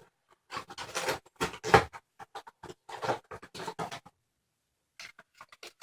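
Handling noise as Nerf Mega foam darts are unpacked: irregular crinkling and clicking of packaging, in quick scattered bursts.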